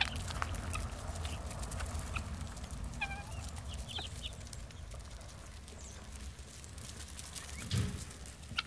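Hens clucking, a few short calls in the first half, with a low thump near the end.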